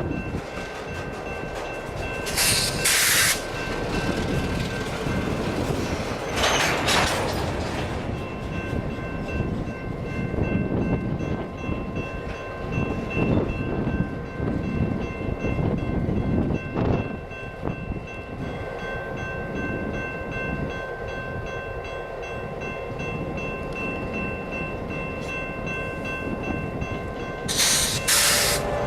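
Diesel locomotive running steadily, with a constant rumble and a few steady whining tones. Three short hissing bursts come about two seconds in, about six seconds in, and near the end.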